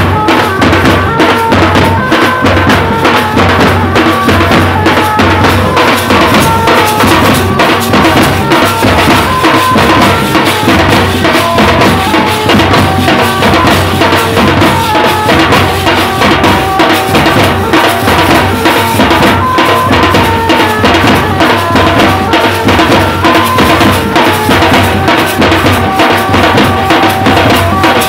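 Tasha drums and large bass drums played together in a fast, driving rhythm, with a band's melody line held above the drumming.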